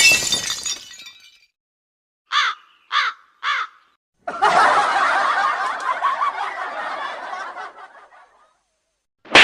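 A sound-effects sequence: a crash of something breaking that dies away over about a second, three short crow caws about half a second apart, then about four seconds of crowd laughter that fades out near the end.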